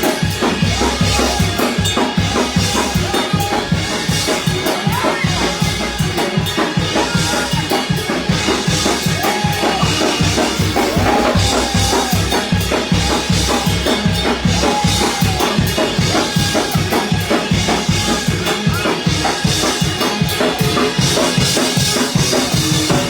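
Fast church praise-break music: a drum kit drives a quick, even beat under bass and bending melodic lines, the music played for a congregation's shout.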